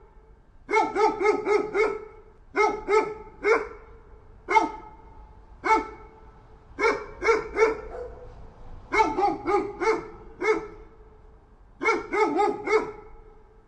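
A dog barking repeatedly in quick runs of two to five barks, with short pauses between the runs.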